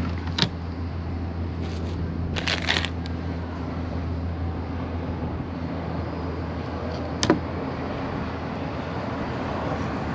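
A steady low motor hum, with a sharp knock about half a second in, a short clattering burst around two and a half seconds in, and another knock about seven seconds in.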